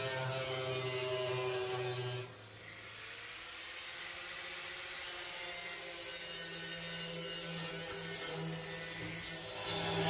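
Angle grinder with a cutting disc running and cutting through a thin steel drum, a steady motor whine over the hiss of the disc on the metal. The sound drops suddenly about two seconds in, then a rising whine as the grinder picks up again and carries on cutting, louder near the end.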